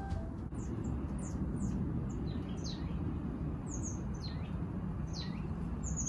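Small songbirds chirping: a string of short, high chirps that each slide quickly downward, scattered through the whole stretch, over a steady low background rumble.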